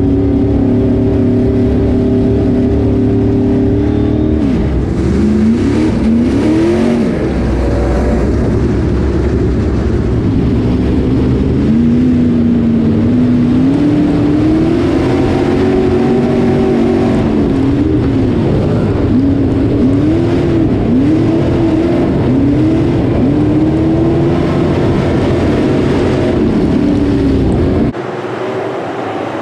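Street stock race car engine heard from inside the car's cockpit, running steadily at first and then rising and falling in pitch again and again as the throttle is worked while rolling with the field. Near the end it cuts suddenly to a quieter, more distant sound of the pack of race cars.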